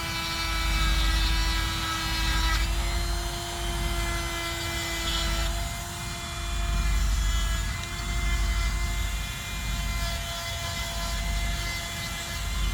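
Chainsaw running at high revs while carving into a wooden log, a steady whine that shifts slightly in pitch twice, over a low rumble that swells and fades.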